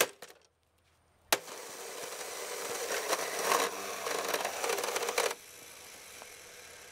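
A sharp knock at the start and another about a second later, then the Sunbeam Retro Mixmaster MX6800 mixer's electric motor runs with a crackling noise that grows louder and cuts off suddenly about five seconds in: the motor burning out.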